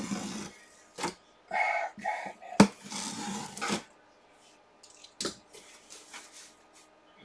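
Cardboard box being handled and its top flaps opened by hand: scattered knocks and scraping of cardboard, the loudest knock about two and a half seconds in.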